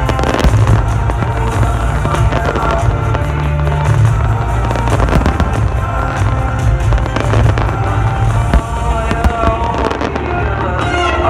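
Fireworks bursting in quick succession, many sharp bangs and crackles, over loud music with a heavy bass.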